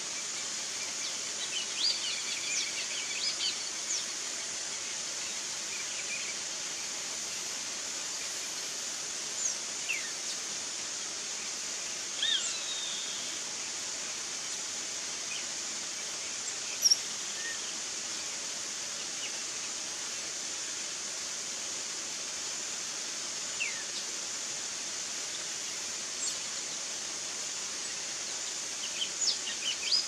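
Steady outdoor hiss with scattered short, high bird chirps and calls. The calls cluster in the first few seconds and near the end, and the loudest is a single sharp chirp about 17 seconds in.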